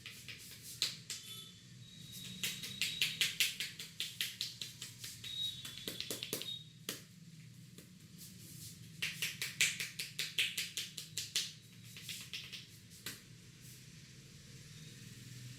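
Barber's hands tapping rapidly on a client's head in an Indian head massage, at about five strikes a second. There are two long runs of quick taps, one about two seconds in and one near the middle, with a few single taps around them.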